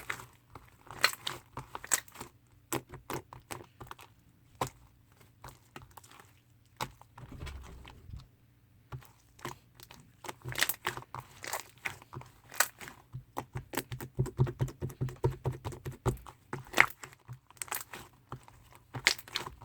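Hands squishing and kneading chewy slime that has paint worked into it: irregular sticky clicks, pops and crackles that come thick and fast a little past the middle.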